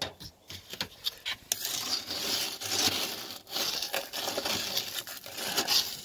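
A wooden stick scraping and raking winter debris (dead bees and wax-paper scraps) out along a beehive's bottom board: a few light knocks in the first second and a half, then a continuous rough scraping and crinkling.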